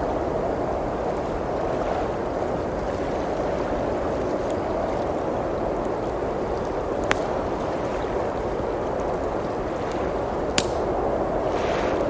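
Blizzard wind blowing steadily, with a wood fire crackling in a fireplace; two sharp pops from the fire stand out, one past the middle and one near the end.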